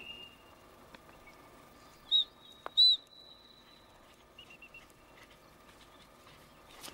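Two short, loud, shrill blasts on a dog-handler's whistle about two seconds in, a little under a second apart, with a faint thin tone trailing after them.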